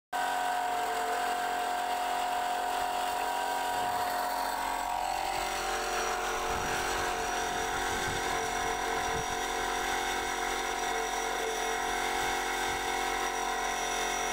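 Old brick and tile cleaning machine running steadily, its electric motor whining as the rotating toothed cutter scrapes cement mortar off an old tile held against it. A few low knocks come between about six and nine seconds in.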